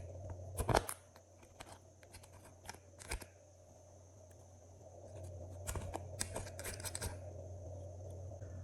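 Glossy slime being worked by hand, giving sharp sticky clicks and pops. There is a loud cluster of clicks under a second in, a few single clicks after it, and a dense run of clicks past the middle.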